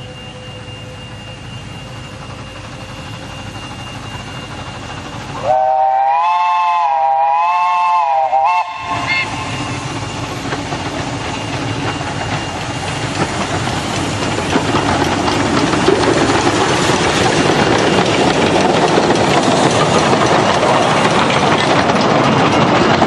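Narrow-gauge steam locomotive approaching with its carriages. About five seconds in, it sounds a multi-tone steam whistle for about three seconds, its pitch wavering up and down. Its running noise then grows louder as the train passes close.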